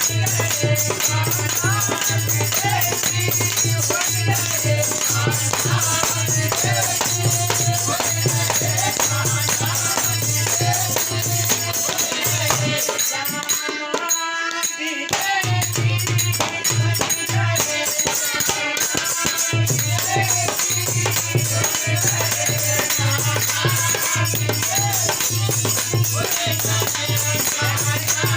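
Devotional bhajan singing with a voice carrying the melody over rapid jingling hand percussion and a pulsing low beat. The low beat drops out for about two seconds near the middle, then comes back.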